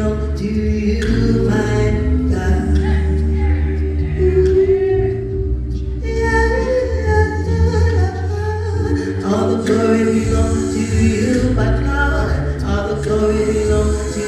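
Gospel singing over musical accompaniment with a heavy, steady bass.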